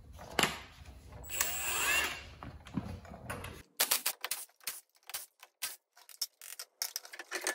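Cordless impact wrench hammering on a car's wheel lug nuts to loosen them, in a quick irregular run of short bursts through the second half.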